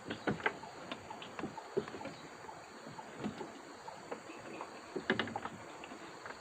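Irregular light knocks and clicks over a steady high hiss, typical of gear being handled in a small boat on a river.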